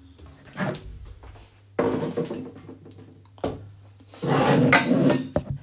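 Thumps and clatter from a phone being handled and carried across a kitchen, in several loud bursts, the longest a little past halfway through.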